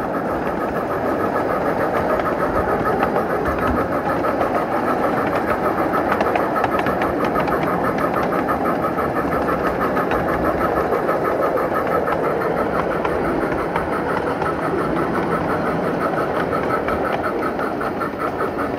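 Battery-electric steam-outline locomotive climbing a 4% grade under throttle. Its Phoenix sound card plays steady, rhythmic steam-exhaust chuffing over the noise of its wheels on the rails.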